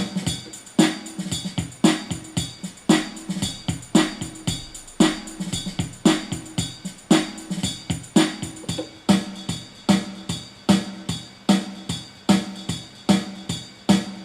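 Yamaha PSR-350 keyboard playing one of its built-in R&B accompaniment styles: a drum-machine beat with a strong hit about once a second and lighter hits between, over bass and chord notes. The pattern changes about a second in, as a new style starts.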